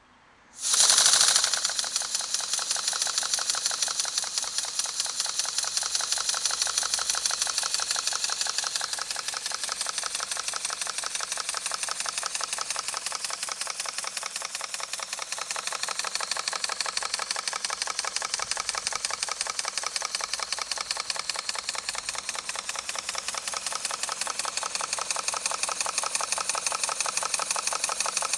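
Model Double Tangye twin-cylinder mill engine running on compressed air: a sudden rush of air about a second in as it starts, then a rapid, even, hissing exhaust beat held at a steady speed by its governors.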